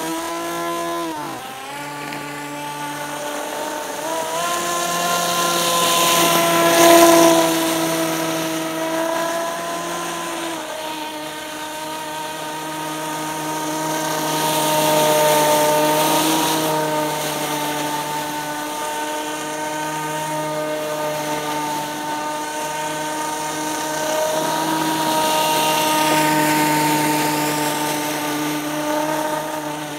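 Whine of an RC hovercraft's 11.1 V brushless electric motor and propeller: a steady pitched drone that dips and rises in pitch with the throttle. It swells louder as the craft comes near, most of all about seven seconds in.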